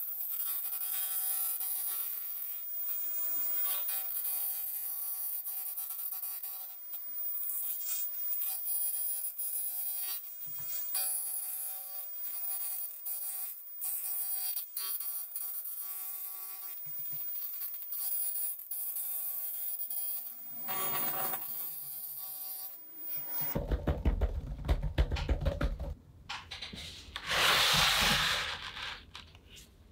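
Laser cleaning machine burning rust off a steel plate: a steady crackling hiss with a constant high whine from the machine. About 23 seconds in this stops, and louder rustling and knocking takes over.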